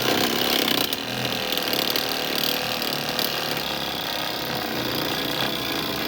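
Wood lathe running steadily while turning a piece of juniper wood.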